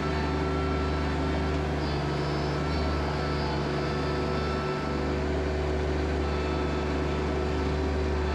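Compact tractor's diesel engine running at a steady speed, a constant low drone.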